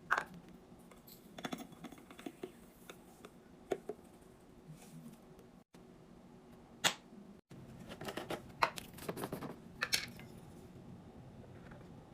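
Containers and packaging being handled while a fridge is restocked: scattered clicks, light knocks and plastic rustling, with sharper knocks at the start and three more from about seven seconds in.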